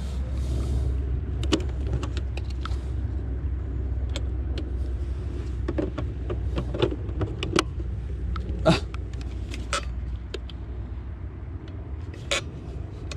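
Plastic clicks and knocks from handling a Baiting 500 bait boat, its hatch and parts, over a steady low hum that fades near the end.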